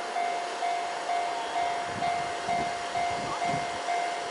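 Japanese railway level-crossing warning bell ringing steadily, one repeated electronic ding about twice a second, signalling an approaching train. A faint low rumble comes in about halfway through.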